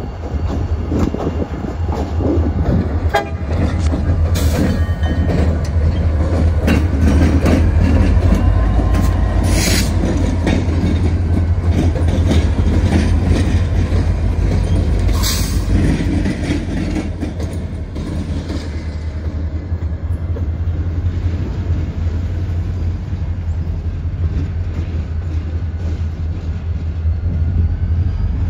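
Two CSX diesel-electric locomotives running light, their diesel engines rumbling steadily, with wheels clicking over rail joints; loudest about eight seconds in as they pass close.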